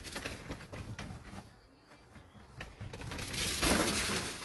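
Nylon fabric of a pop-up cat enclosure rustling and scratching as cats scramble across it and dart into its tunnel, with irregular small knocks and a louder rustle about three and a half seconds in.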